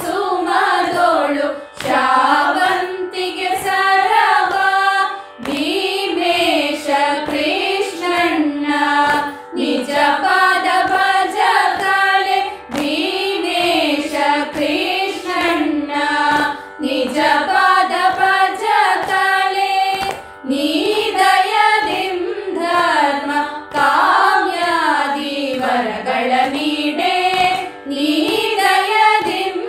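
A group of women singing a Kannada devotional song (devaranama) together in raga Brindavani Sarang, in gliding, ornamented phrases with short breaks between lines.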